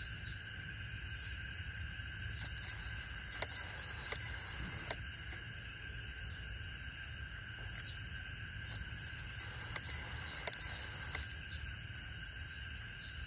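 Night chorus of crickets and other insects: several steady high trills over a rapid high pulsing chirp at about three pulses a second, with a few scattered faint clicks.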